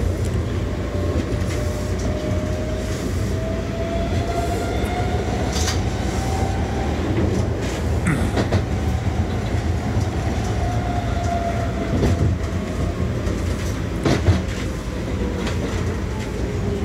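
Electric rail car of the Norristown High Speed Line running over a crossover onto the other track. There is a steady low rumble and a motor whine that rises in pitch over the first several seconds and falls again later. Sharp clicks and knocks come from the wheels over the switch and rail joints, the loudest about fourteen seconds in.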